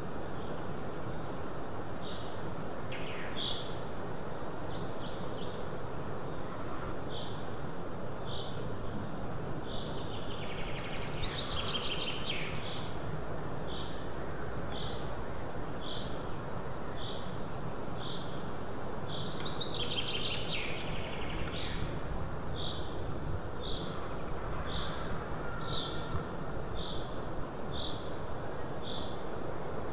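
Forest ambience under a steady hiss of wind or noise. A small bird repeats one short high note about once a second, and other songbirds sing briefly about eleven and twenty seconds in.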